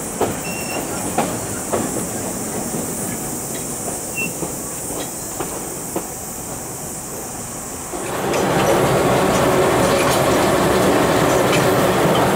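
Narrow-gauge train running along the track, its wheels clicking over rail joints, with a few short, faint high squeaks. About eight seconds in the sound jumps abruptly to a louder, steady running noise of the 1948 TR-class diesel locomotive and its wheels.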